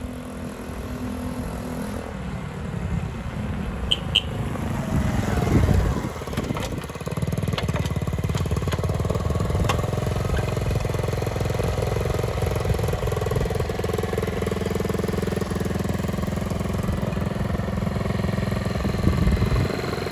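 1971 Honda CT70's small single-cylinder four-stroke engine running as the bike rides up. Its note grows louder and sweeps down in pitch as it slows about five to six seconds in, then settles into a steady idle.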